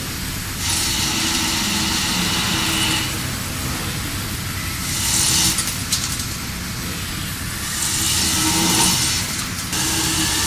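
WFL M60 MillTurn machine running while machining a crankshaft: a steady low hum, with three stretches of loud hiss, each a second or two long, that come and go.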